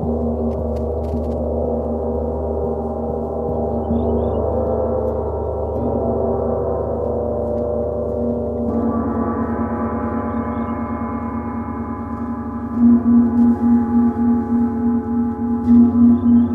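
Bifrost #1 titanium gong and water gong ringing together in a sustained wash of overtones. About two-thirds of the way through, a fresh stroke brightens the sound, and near the end it pulses about three times a second.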